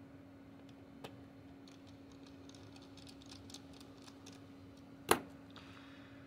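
Small screwdriver ticking faintly as it drives a screw into a laptop fan's mounting, a run of light ticks, then one sharp click about five seconds in.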